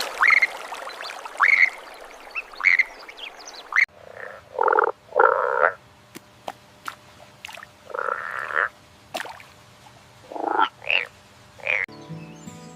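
Indian bullfrog (Hoplobatrachus tigerinus) croaking: a series of short, separate croaks a second or two apart, the first few thin and higher-pitched, later ones lower and fuller. Music comes in near the end.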